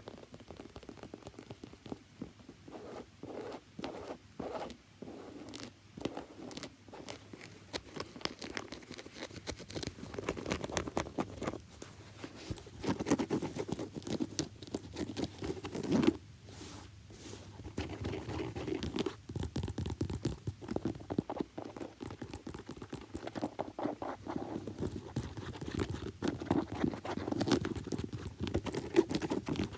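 Tapping and scratching on a shoe: separate, spaced-out taps at first, then fast, dense tapping and scratching for most of the rest.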